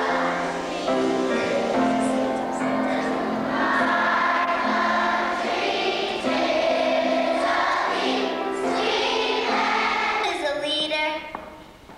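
A children's choir singing together in long held notes. The singing fades out near the end.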